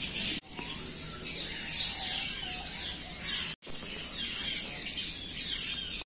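Many small aviary birds chirping, with lots of quick, high calls overlapping. The sound cuts out abruptly twice, just under half a second in and again about three and a half seconds in.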